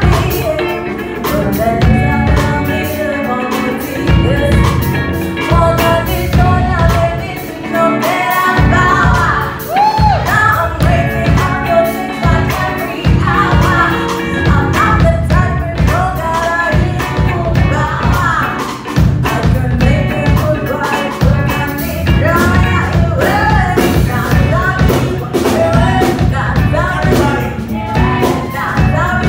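Live neo-soul/funk band playing: a woman singing lead into a microphone over electric guitar, electric bass and a Pearl drum kit, with a steady beat.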